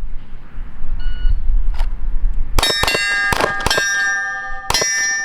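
A shot timer beeps once, and about a second and a half later a Glock 19 9mm pistol fires a quick string of shots, the AR500 steel targets ringing after each hit.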